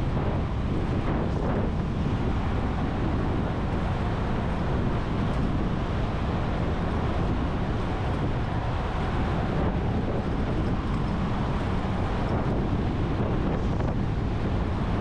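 Steady wind rushing over the microphone of a rider on an electric dirt bike at speed, with a low road and tyre rumble underneath.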